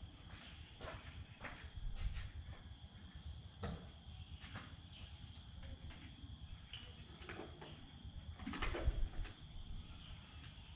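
A steady chorus of crickets, trilling at two high pitches without a break. A few faint clicks and knocks and a low rumble sit underneath.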